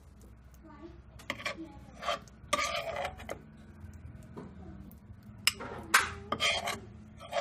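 A metal spoon scraping thick jam from a non-stick pan and knocking it off into a small bowl: a series of short scrapes, with the loudest, a sharp clink, about six seconds in.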